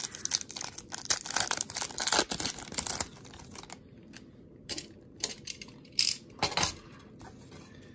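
A hockey card pack's wrapper being torn open and crinkled for about three seconds. After that comes quieter, intermittent rustling as the cards are handled.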